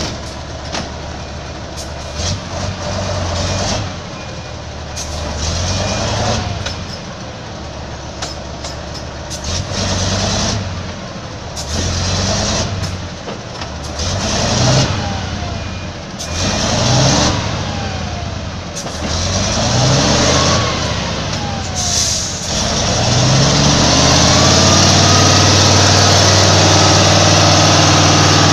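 Loaded logging truck's diesel engine revving in repeated bursts every two to three seconds as it struggles in deep mud, with short sharp clicks between the bursts. From about 23 seconds in, the engine is held at high revs, louder and steady.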